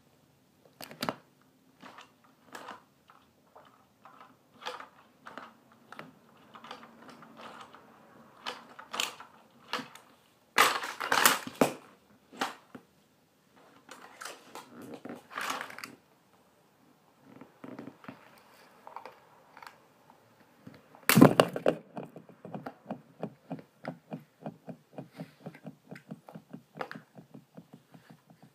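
Plastic toy trucks knocked about and crushed under high-heeled shoes: scattered knocks and cracks of plastic, a dense crunching cluster about a third of the way in, then a loud crunch past the middle followed by a fast run of even clicks.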